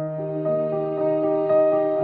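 Background music of long, held notes that change every half second or so.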